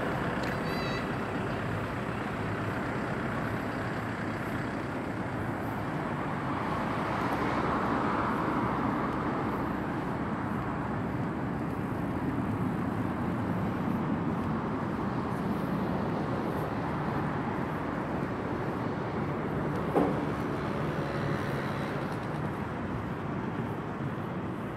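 Steady city road traffic noise, with one vehicle passing louder about eight seconds in and a single sharp knock about twenty seconds in.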